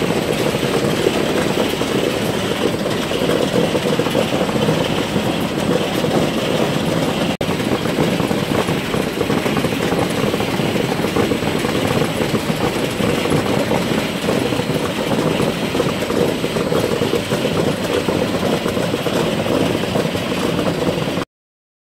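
Newtec Celox-P-UHD optical potato sorting machine running: conveyor belts and motors with a steady dense clatter of small potatoes tumbling off the belt ends. It cuts off suddenly near the end.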